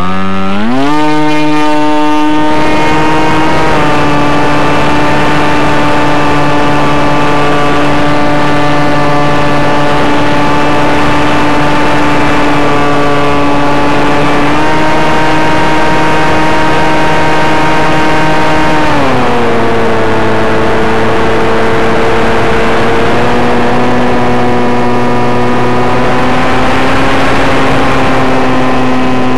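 Electric brushless outrunner motor (Turnigy 1100kv) driving the propeller of an MS Swift 2 flying wing, heard through the plane's onboard microphone with a rushing noise behind it. It whines up steeply in the first second, holds a steady high pitch, drops to a lower pitch about nineteen seconds in, then climbs slowly again near the end as the throttle is changed.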